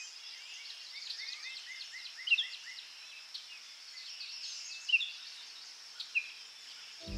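Birds calling, a quick run of short descending chirps and a few sharper, louder calls, over a steady high-pitched insect drone.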